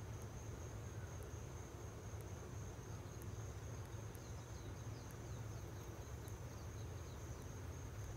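A steady high-pitched insect trill, like a cricket, over a low steady hum. The trill thins out for a few seconds in the middle, while faint short falling chirps are heard.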